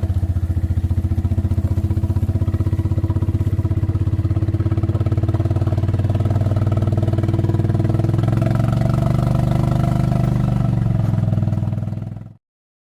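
Small vehicle engine running close to the microphone with a fast, even pulse, picking up speed about eight seconds in, then cutting off suddenly near the end.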